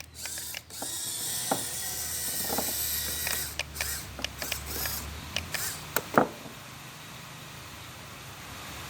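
Machinery running with a steady low hum. A hiss is loudest in the first few seconds, and a string of sharp metallic clicks and clanks follows, the loudest about six seconds in.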